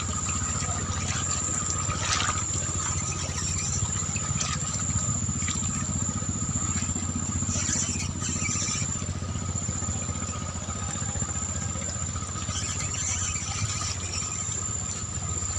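A small engine running steadily, with a constant high whine above it and a couple of brief knocks.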